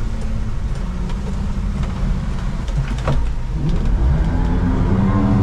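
Boat motor running under way with water rushing along the hull, the engine pitch wavering and the sound growing louder as the boat runs through the chop. A single knock about three seconds in.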